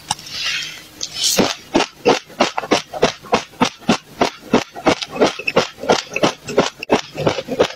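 Close-up chewing of a mouthful of dry mixed seeds with the lips closed: a steady run of crunches about four a second. A brief rustle in the first second comes before the crunching starts.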